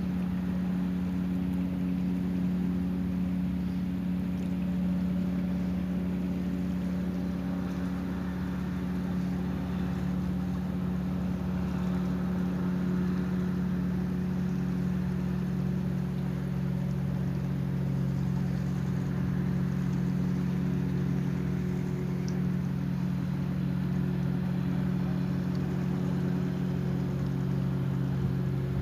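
Motorboat engine running steadily, a low droning hum as the wooden boat pushes against the current; its lower tone grows stronger about two-thirds of the way in.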